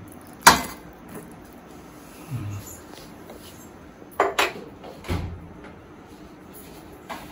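Sharp clack of a ceramic bowl turned upside down onto a ceramic plate, followed by a few softer knocks and dull thuds.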